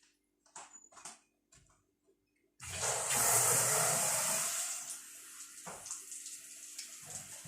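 Water suddenly rushes through newly plumbed, heat-fused plastic pipes about two and a half seconds in as the supply is turned on. It is loud for about two seconds, then settles to a steady, quieter flow.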